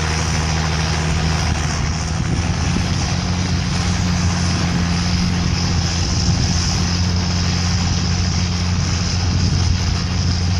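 Oliver 1855 tractor's six-cylinder turbo diesel engine running steadily, its low drone holding a constant pitch.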